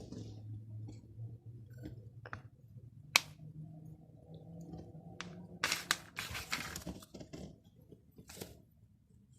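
Scattered sharp clicks and, from about 6 to 7 seconds in, a stretch of crackly, scratchy noise, from a silicone pop-it fidget toy and a metal scouring sponge being handled together.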